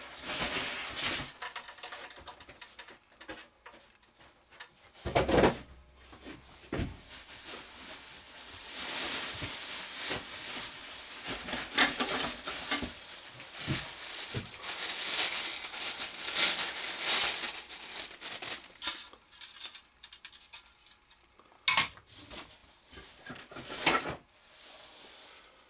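Sander parts and packaging being handled while unboxing: scratchy rustling of packing material with several sharp knocks and thumps, the loudest about five seconds in and near the end.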